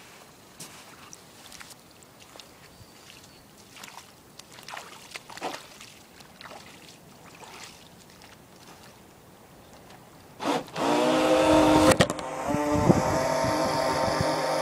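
Radio-controlled boat's small motor: a quiet stretch with a few faint ticks, then the motor starts about ten seconds in and runs with a steady whine.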